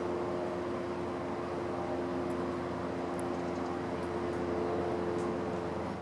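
Steady engine drone with a low multi-tone hum, like a passing aircraft or nearby traffic, over a few faint high bird chips.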